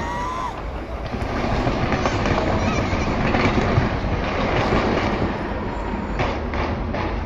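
Fireworks going off in a dense, continuous run of bangs and crackling, with a short whistle at the very start and a few sharper cracks near the end.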